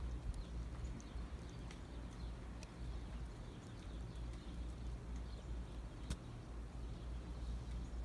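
Outdoor ambience in falling wet snow: a steady low wind rumble on the phone's microphone, with scattered light ticks and taps and one sharper tick about six seconds in.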